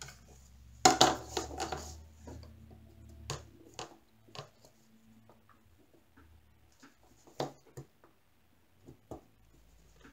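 Light clicks and taps of thin wooden box panels being handled and slotted together on a wooden tabletop, with a louder burst of sound about a second in and scattered single clicks after it.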